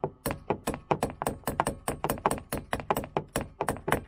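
A hammer tapping a new boat windscreen wiper arm down onto its splined spindle: quick, even blows, about five a second.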